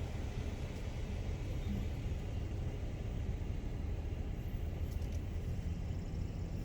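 Steady low rumble of a car heard from inside the cabin, engine and road noise while driving slowly.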